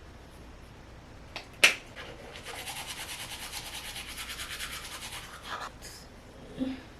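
A sharp click, then about three seconds of rapid, rhythmic brushing strokes, a toothbrush or face brush scrubbing. A soft knock near the end.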